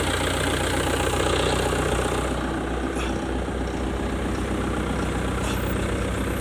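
Bobcat S-130 skid-steer loader's diesel engine idling steadily.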